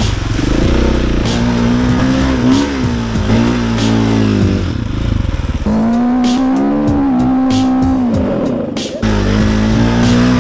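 Enduro dirt bike engine revving and pulling hard through wet sand, heard close up from on board, its pitch rising and falling with the throttle. The engine sound breaks off abruptly about six seconds in and again about nine seconds in.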